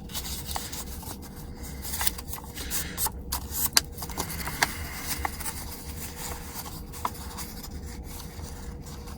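Paper being folded and creased by hand: irregular rubbing and scraping, with a few sharp little clicks.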